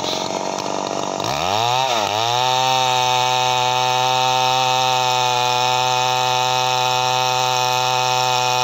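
Two-stroke gasoline chainsaw cutting through a felled tree trunk. The engine pitch rises and then dips about two seconds in, then holds steady under load.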